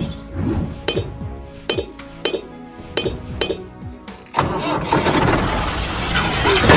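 Background music with a regular clicking beat and falling sweeps in pitch. About four seconds in, a louder, denser noisy sound takes over.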